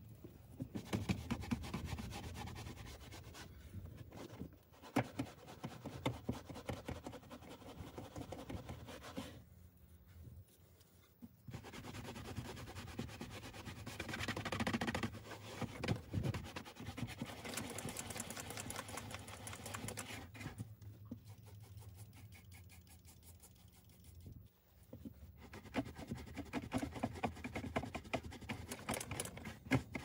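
Scrubbing and rubbing on car interior fabric, many quick strokes in bursts with short pauses partway through, as the upholstery or carpet is worked over during extraction cleaning.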